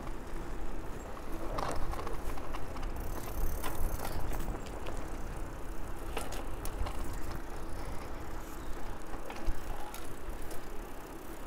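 Bicycles rolling on a paved road, with wind rumbling on the microphone and scattered short mechanical clicks from the drivetrain as the gears are shifted.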